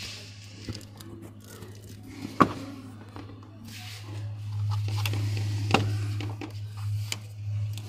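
Sharp clicks and knocks from hands handling parts in a car's engine bay, the two loudest about two and a half and six seconds in, over a steady low hum.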